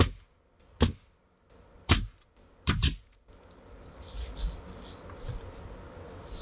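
Four sharp knocks, roughly one a second, followed by a few short, soft hissing sounds.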